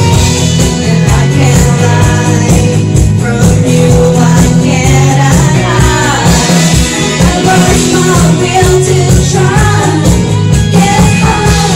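A woman singing karaoke into a microphone over a loud backing track with a steady bass beat.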